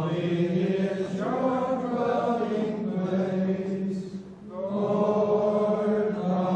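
Trappist monks' voices chanting together in unison, a slow line of long held notes with a brief pause for breath a little past halfway.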